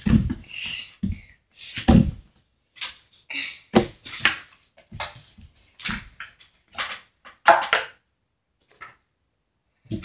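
Irregular taps, knocks and scrapes of hands working Play-Doh on a tabletop, pressing a plastic Play-Doh tub down onto the dough, with a couple of heavier thumps in the first two seconds.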